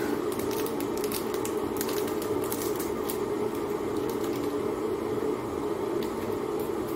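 A small paper food packet being torn open and handled, making scattered sharp crinkling clicks, over a steady low hum.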